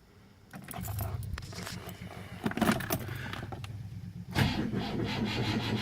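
Engine switched off, with faint clicks. About four seconds in, the starter motor of a 1973 Rover P6 3500S's V8 starts cranking sluggishly: a lazy starter.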